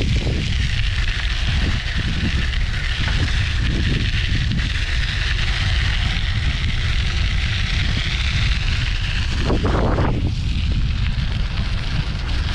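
Wind buffeting the microphone of a camera on a moving bicycle: a steady low rumble with a hiss above it.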